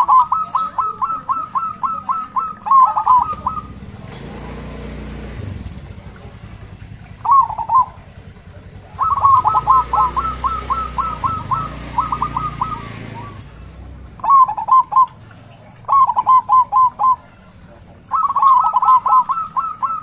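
Zebra dove singing: several phrases of quick, staccato cooing notes, about four or five a second, separated by short pauses. A low rumble sits underneath through the middle.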